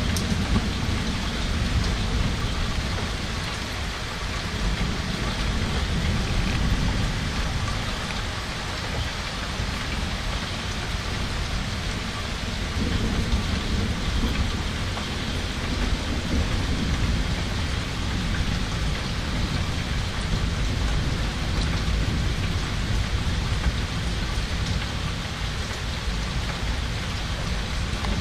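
Steady heavy rain pattering on surfaces during a summer thunderstorm, with low rumbles of thunder swelling and fading several times.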